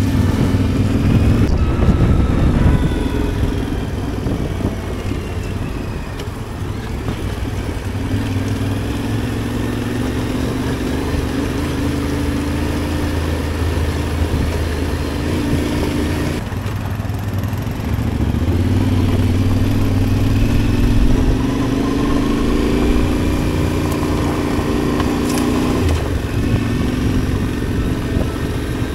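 Adventure motorcycle engine running on the move, its note rising and falling gently with the throttle, with two abrupt changes in the sound about halfway through.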